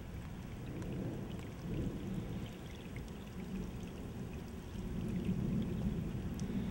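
Heavy rain falling on asphalt pavement: a steady wash of rain with scattered drop ticks, swelling louder about five seconds in.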